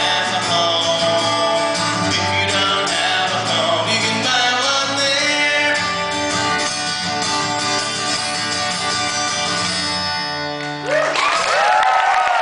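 Live rock band with guitar playing the closing bars of a song, ending about ten and a half seconds in. An audience then breaks into cheers and whistles.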